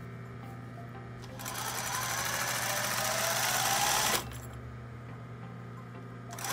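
Sewing machine stitching a seam through cotton skirt fabric: the machine runs for about three seconds, picking up speed with a rising whine, then stops abruptly, leaving a steady low hum.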